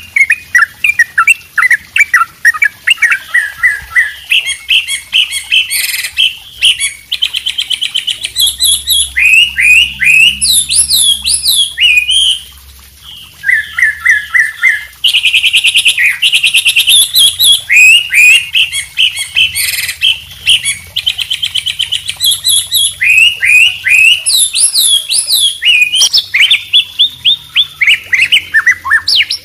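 Songbirds singing together: white-rumped shama (murai batu), wambi and yellow-vented bulbul (trucuk) in a dense stream of fast trills, rising and falling whistled notes and chattering phrases. There is a short lull about twelve seconds in.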